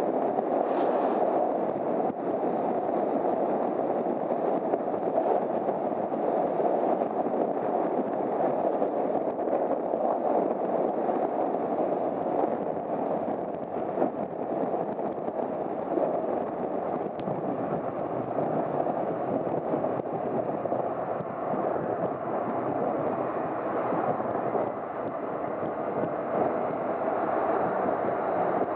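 Riding noise from a Honda CBR250R motorcycle under way: a steady, even rush of wind and road noise on the microphone, with no clear engine note standing out.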